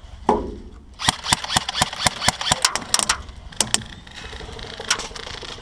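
Airsoft gunfire: a quick, irregular string of sharp snaps and cracks, then a steady buzzing hum from about four seconds in.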